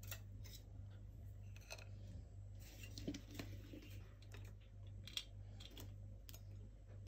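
Faint light taps and dry rustling as dried tea tree mushrooms are set down one by one on a ceramic plate, over a steady low hum.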